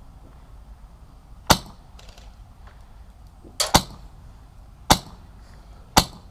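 Airsoft HK417 rifle with a Polarstar Jack high-pressure-air engine firing four single shots, each a sharp pop, about a second or two apart.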